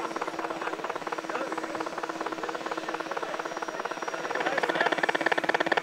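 A radio-controlled model watercraft's motor running with a fast, even pulsing beat, getting louder about four and a half seconds in as it comes closer or opens up.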